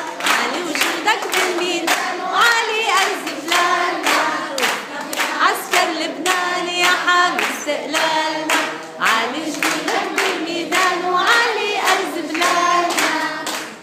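A group of children singing a song together, with hands clapping along to a steady beat.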